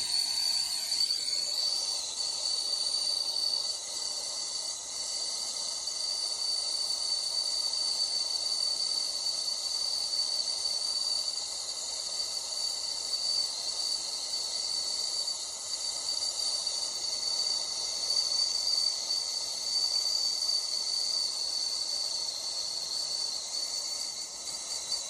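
Brazing torch flame burning steadily: a constant hiss with a steady high-pitched whistle in it, lit just before the joint on the evaporator coil's capillary tube is heated.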